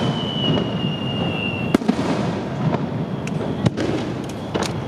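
Aerial fireworks going off. A long whistle, falling slightly in pitch, cuts off with a sharp bang about two seconds in. Several more sharp cracks follow over a continuous rumble of bursts.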